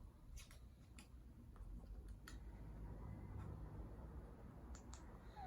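A few faint, scattered clicks as a black-headed caique works the lever of a Beakbox enrichment toy with her beak, not yet hard enough to set off its music.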